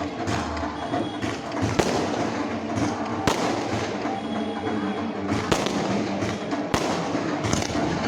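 Fireworks going off: a string of sharp bangs, about one a second, over a steady background din.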